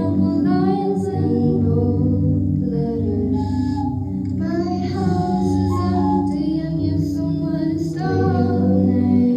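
Music with a singing voice over sustained low notes.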